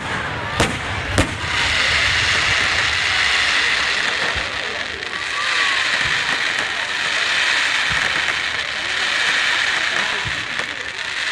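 Fireworks: two sharp bangs in the first second or so, then a dense, steady crackling that runs on through the rest.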